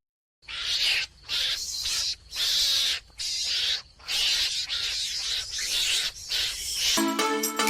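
An animal's harsh, hissing calls, a run of short bursts each under a second, separated by brief pauses.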